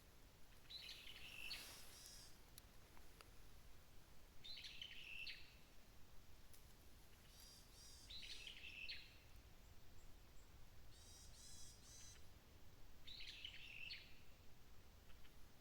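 Red-flanked bluetail singing faintly: a short warbling phrase about a second long, repeated four times every few seconds. A separate, higher series of notes comes once, about eleven seconds in.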